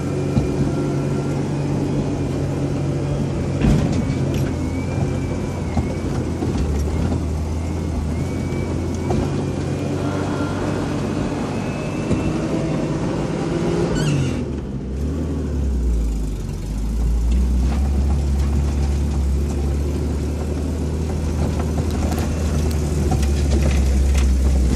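Four-wheel-drive vehicle's engine pulling up a steep, rough dirt track, heard from inside the cab, with scattered knocks and rattles from the rough ground. About fourteen seconds in, the engine note falls and briefly dips, then comes back deeper and louder.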